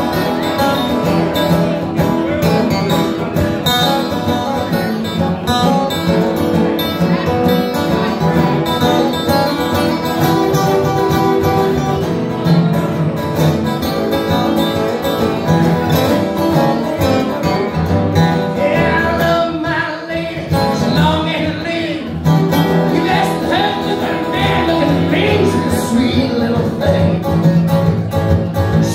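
Two acoustic guitars strummed together in a live duo performance, with a man singing into a microphone over them; the playing briefly thins out about two-thirds of the way through.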